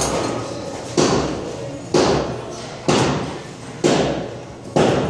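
Heavy knocks repeating evenly about once a second, each fading briefly after the hit.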